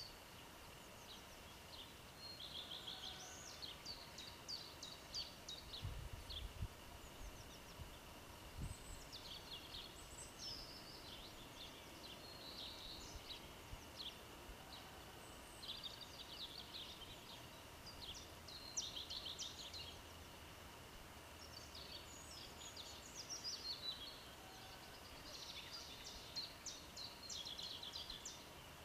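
Several songbirds singing at once, overlapping phrases of high chirps and fast trills that come and go every few seconds, faint against a steady background hiss of the open air.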